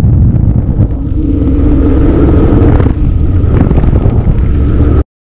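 Formula Junior racing car's engine running at speed, picked up by the car's onboard camera along with wind rush. The engine note dips briefly about one second and again about three seconds in, and the sound cuts off abruptly just before the end.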